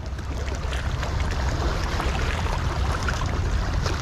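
Harbour water washing and lapping against sandstone rocks at the shoreline, a steady wash with a low rumble underneath.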